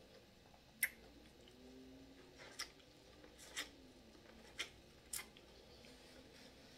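Mouth sounds of eating seafood-boil corn on the cob: five sharp smacks and clicks, about a second apart, from biting the cob and sucking the fingers.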